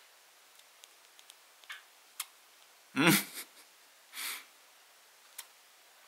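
White Java sparrow sneezing: tiny clicks and sniffs in the first two seconds, then a short breathy sneeze a little after four seconds in, which the owner takes for a sneeze. A louder, brief human vocal sound comes about three seconds in.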